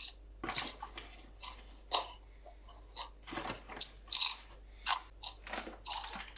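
A spoon tapping and scraping in a bowl while sauce and seasoning are measured in: a dozen or so irregular short clicks and brief scrapes.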